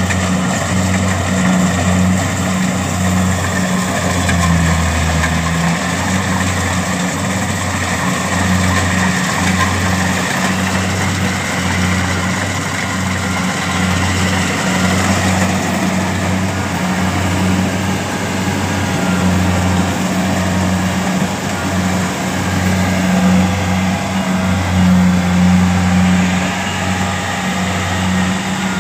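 Kubota DC-70 rice combine harvester's diesel engine running steadily as the machine crawls on its tracks through deep mud. Its low hum pulses in a regular beat, under a dense mechanical clatter from the machine.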